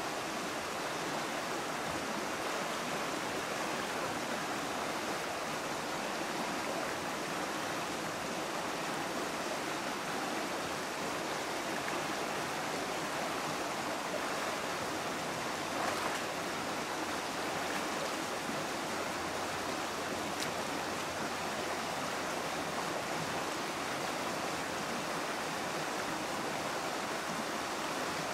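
Shallow river water rushing steadily over stones, with one brief sharper sound about halfway through.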